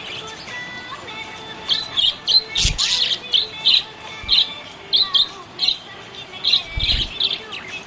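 Budgerigar chirping: a quick run of short, sharp, high chirps, about two or three a second, beginning about a second and a half in. Two soft low thumps fall among them.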